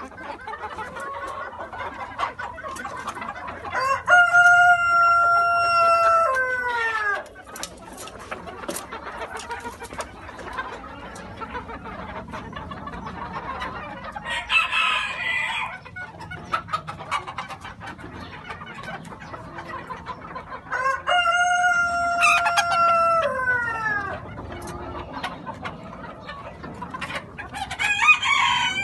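Splash Cochin bantam roosters crowing, two full crows each about three seconds long with a held note that drops away at the end, and a third crow beginning near the end. Under them the flock clucks constantly, with a short squawk midway.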